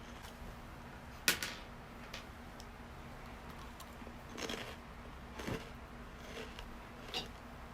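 Okaki rice crackers crunching as they are bitten and chewed: one sharp crack about a second in, then a few softer crunches spaced a second or two apart.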